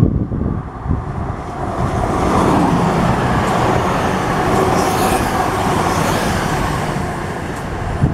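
CrossCountry Voyager diesel-electric multiple unit passing close by. Its engine and wheel noise builds over the first couple of seconds and then holds steady, with wind buffeting the microphone at the start.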